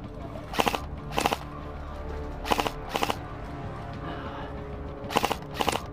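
Airsoft electric rifle fired in six short full-auto bursts, grouped in three pairs about half a second apart, each burst a quick string of shots. Background music plays under them.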